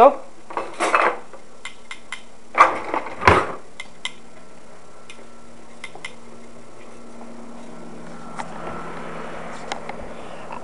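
Metal kitchen utensils clinking and clattering as grill tongs are pulled out of a drawer, with a couple of louder knocks about three seconds in, then only a few faint ticks.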